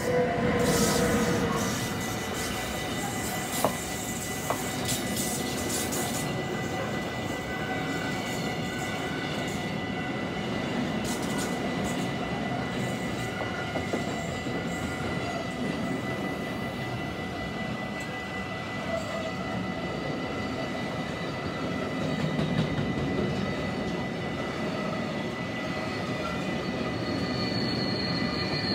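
Electric freight locomotive passing close by, loudest right at the start, followed by a long intermodal train of container and trailer wagons rolling steadily past, with wheels rumbling and clicking over the rails.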